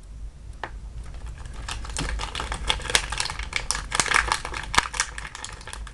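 Crinkling and crackling of a blind-bag packaging wrapper being handled and pulled apart by hand: a dense run of small crackles and clicks that thickens after the first couple of seconds.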